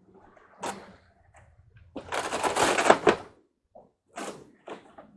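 Rattling, scraping clatter of a screen door being handled: a click about half a second in, a loud rattling scrape that lasts about a second from around two seconds in, then a few short knocks.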